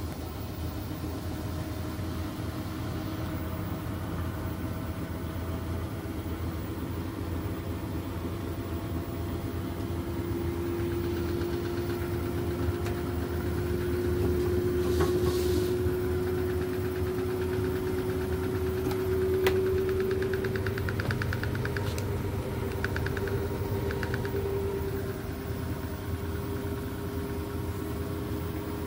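Beko washing machine running with water in its drum: a steady low hum and a whine that slowly rises in pitch, with a few sharp clicks or knocks through the middle. Its owners took this running noise as reason enough to return the machine.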